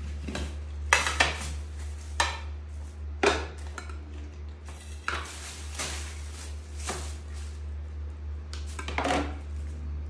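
A plastic spoon scraping and clinking against a metal bowl as a monkey eats from it: about eight short, sharp clatters at uneven intervals, over a steady low hum.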